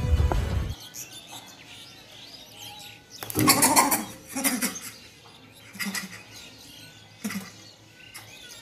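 Cat hissing in several short, sharp outbursts, the loudest just over three seconds in, with smaller ones after.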